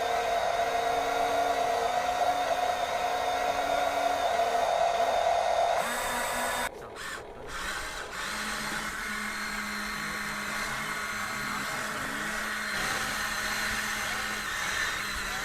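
Small electric motors and gearboxes of radio-controlled toy construction vehicles whining. The whine is steady and high for about six seconds, breaks off briefly, then comes back as a lower, steady motor whine.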